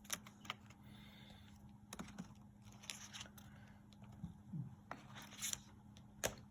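Pokémon trading cards being handled on a table: scattered soft clicks, taps and scrapes of cards being slid and set down, over a faint steady hum.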